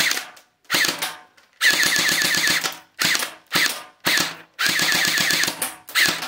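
Airsoft gun firing single shots, a rapid burst of about eight shots, three more single shots, then a second rapid burst and a last single shot near the end.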